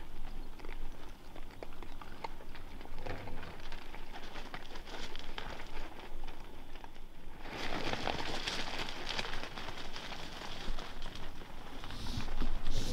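Wild boar and piglets moving and feeding on grain spread over gravel: scattered crunching, crackling and patter of hooves. A louder rustling runs for a couple of seconds just past the middle, and again near the end.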